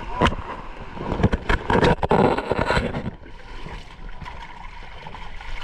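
Shallow seawater splashing and sloshing around a small outrigger boat. A run of sharp splashes and knocks fills the first three seconds, then it settles into a steadier wash of water.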